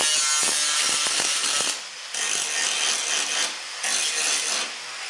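Angle grinder grinding into the car's steel sill panel, disc on sheet metal. It eases off briefly about two seconds and three and a half seconds in and drops away near the end.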